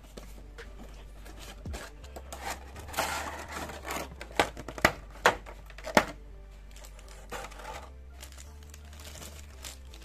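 Clear plastic packaging crinkling and crackling as a boxed figure is unpacked from its blister tray and bag, with four sharp plastic clicks in the middle, the loudest sounds. Background music plays underneath.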